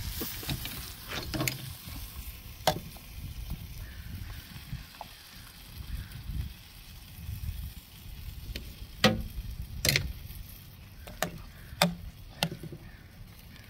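Metal tongs clicking and clanking against a grill grate and a metal sauce pot as chicken drumsticks are lifted and dipped in sauce. There are scattered sharp clacks, the loudest in the second half, over a low rumble.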